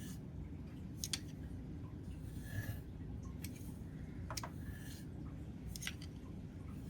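Knife blade being drawn along a 4-micron strop: soft, quiet strokes with a few light, sharp clicks as the blade is lifted and set back down.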